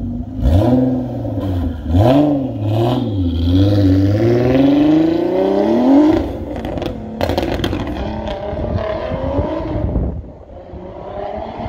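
Twin-turbo VQ35DE V6 of an Infiniti G35 coupe through its Motordyne Shockwave exhaust: two quick rev blips, then a long full-throttle pull with rising pitch. About six seconds in the pitch drops sharply on the upshift, and the engine carries on pulling as it fades into the distance.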